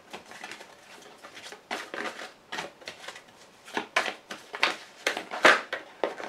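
A deck of cards shuffled by hand, overhand: a string of quick, irregular papery swishes and slaps, the loudest about five and a half seconds in.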